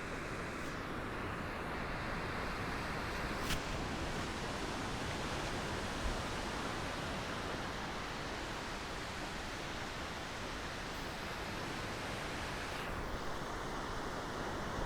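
Gentle ocean waves lapping against the shore, a steady wash of surf, with a brief click about three and a half seconds in.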